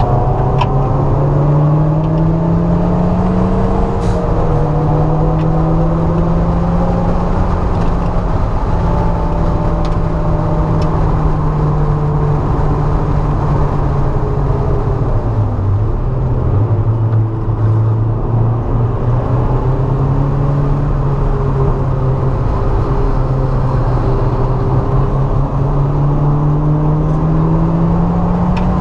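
Mazda MX-5's four-cylinder engine heard from inside the cabin at track speed: the revs climb and step down with an upshift about four seconds in, hold steady, fall away about halfway through as the car slows for a corner, then climb steadily again near the end.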